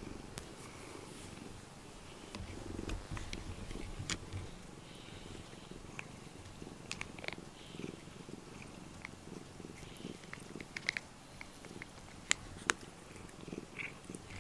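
Domestic cat purring steadily, with scattered small sharp clicks as it licks and mouths a rubber grooming brush.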